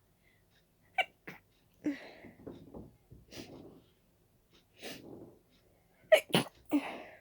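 A person sneezing from a dust allergy: two quick, sharp sneezes about a second in, breathy inhales and sniffs through the middle, then three sneezes in rapid succession near the end.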